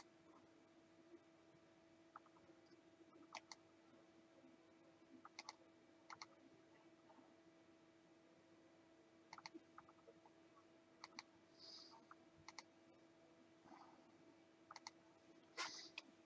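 Near silence broken by a handful of faint, sharp computer mouse clicks, several in quick pairs, spaced irregularly, over a faint steady electrical hum.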